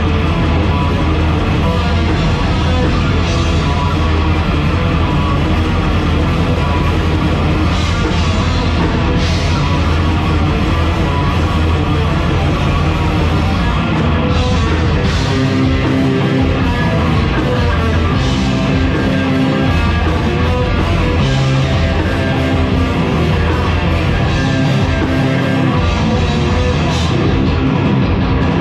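Heavy metal band playing live at full volume: distorted electric guitar, bass and drums, with cymbal crashes every few seconds. About halfway through, the low end turns to a stop-start riff.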